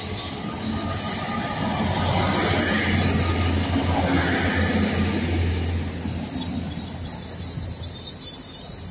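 Great Western Railway Hitachi bi-mode Intercity Express Train (Class 800-series) pulling out along the platform under diesel power. The low drone of the underfloor diesel engines mixes with the rumble of the wheels on the rails, loudest a few seconds in, then fading as the rear car draws away.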